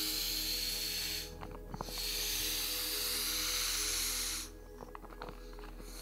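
Air hissing out of an inflatable sleeping pad's valve in two long rushes as it is pressed flat. Short rustles and clicks of the pad's fabric come between the rushes and after the second one.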